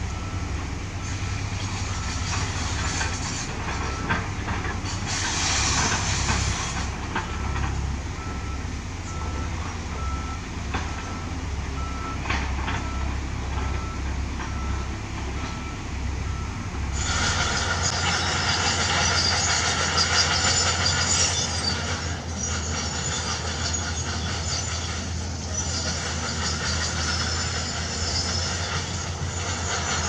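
Heavy diesel engines of an excavator and dump truck running steadily, with a reversing alarm beeping at about one and a half beeps a second through the first half and a few knocks of rock. About halfway through the beeping stops and the engine noise turns louder and hissier.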